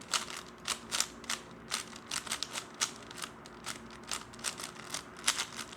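3x3 speedcube being turned fast during a solve: a run of sharp, irregular plastic clicks, about three or four a second.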